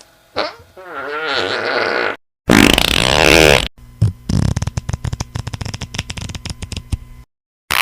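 A run of fart sound effects played one after another. First a short one, then a longer one with a wavering pitch, then a loud blast, and finally a long sputtering, rattling fart made of rapid pops.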